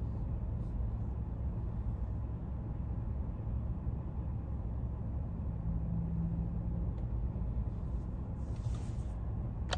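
Steady low rumble of a car heard from inside the cabin, with a short hiss about nine seconds in.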